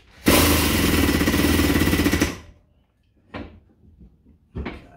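Air-over-hydraulic pump of a 10-ton bench-top hydraulic press running for about two seconds with a fast rattling buzz as it drives the ram down, then cutting off. Two brief handling noises follow.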